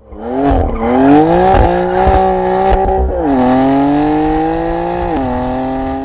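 Car engine revving hard and accelerating, its pitch climbing and then dropping sharply twice, about three and five seconds in, as it shifts up through the gears.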